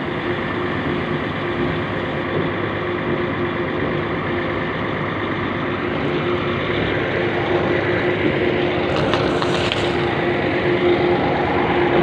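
Concrete mixer truck's diesel engine idling steadily, a constant drone with a steady hum.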